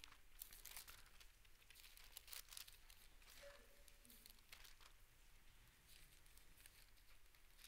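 Faint, scattered rustling and crinkling of thin paper: Bible pages being turned, mostly in the first few seconds.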